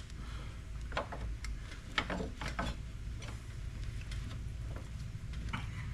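Scattered light clicks and taps of metal parts being worked by hand as the motorcycle's rear brake caliper and bracket are slid back to come off, over a steady low hum.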